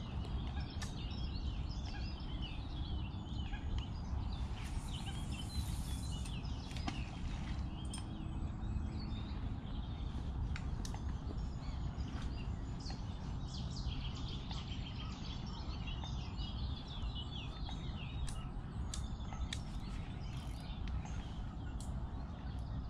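Small birds chirping and singing throughout over a steady low rumble. About five seconds in there is a brief hiss, and a few faint clicks.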